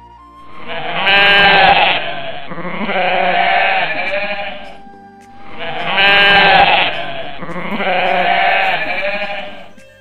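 Sheep bleating loudly over background music: two long bleats, then the same pair of bleats again about five seconds later.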